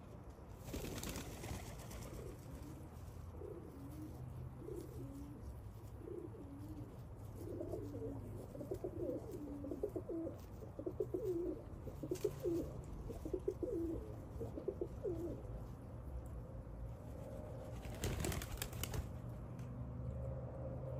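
Domestic pigeons cooing in a run of short, low, repeated calls. Two brief rushes of noise break in, one about a second in and one near the end.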